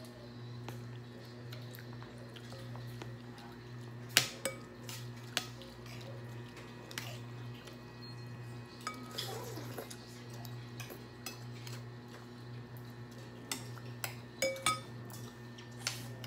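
A metal ladle and spoons clinking against a glass serving bowl and dishes: scattered sharp clinks with short ringing, the loudest about four seconds in and several more near the end, over a steady low hum.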